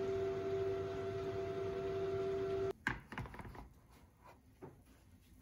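Oven running with a steady hum and fan noise, cutting off suddenly about two and a half seconds in. Then a few light clicks and knocks, the baking tray of cookies being handled.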